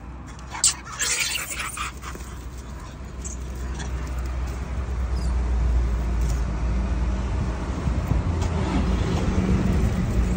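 A motor vehicle engine running: a low steady hum that grows louder over the first few seconds and then holds. A short rustle comes about a second in.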